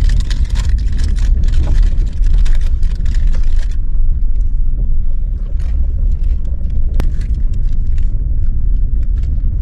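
Steady low road and engine rumble inside a moving car's cabin. For the first three and a half seconds or so, a plastic chips packet crinkles as it is handled.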